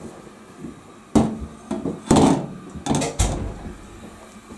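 Glass pot lid being handled on a stainless steel saucepan, knocking and clattering against the rim four times in about two seconds.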